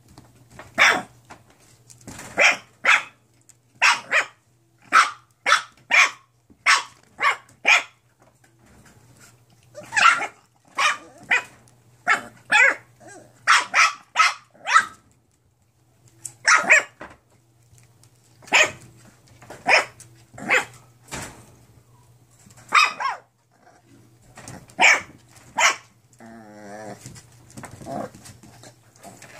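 Nine-week-old mixed-breed puppies yapping: short, sharp, high barks in quick runs of two to five, with brief pauses between runs. Near the end a short wavering cry replaces the barks.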